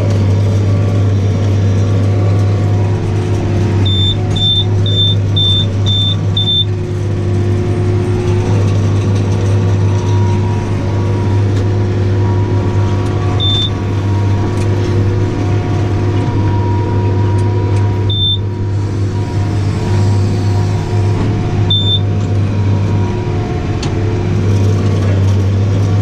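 Tractor engine running steadily under load from inside the cab, pulling a Welger round baler through heavy green grass. A short high electronic beep sounds six times in quick succession about four seconds in, then singly three more times.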